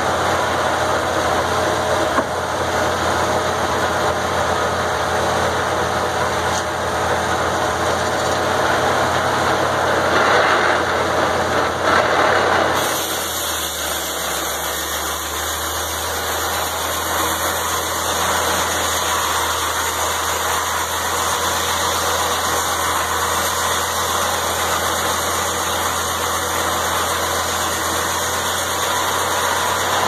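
Engine-driven circular sawmill running, its large head saw blade spinning: a loud, rough whirring for about the first 13 seconds, then a steadier, slightly quieter engine hum with the blade turning free.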